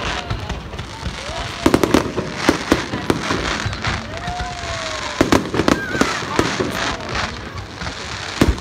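Fireworks display: repeated bangs and crackling bursts over a steady crackle, bunched about two seconds in, around five seconds in, and near the end.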